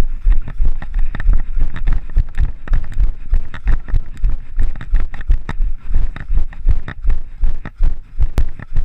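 Running footsteps on a trail of dry fallen leaves, an even thudding of about three strides a second with the leaves crunching underfoot.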